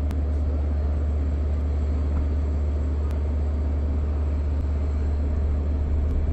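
Diesel engine of an LIRR DM30AC locomotive idling at a station stop, a steady low rumble.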